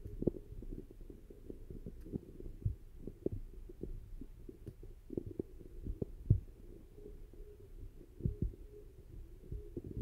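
Wind buffeting a phone's microphone: an irregular, muffled low rumble with soft thumps every second or so.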